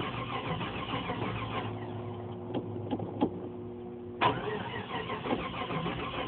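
The starter is cranking a cold 1989 Jeep Grand Wagoneer's AMC 360 (5.9 L) V8, weakly, on a battery that had been dead for weeks and is on the charger. The engine does not catch. About two seconds in the cranking lets up with a few clicks, then starts again sharply about four seconds in.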